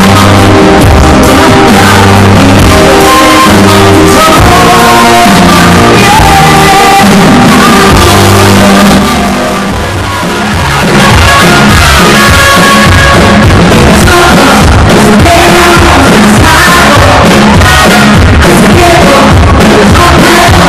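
Loud live pop music through a stage PA, with a woman singing into a microphone; the music drops back briefly about halfway through.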